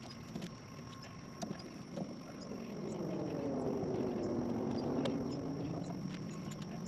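A passing engine swells and fades over a few seconds, its pitch dropping as it goes by. Steady insect buzzing and a few light clicks are heard throughout.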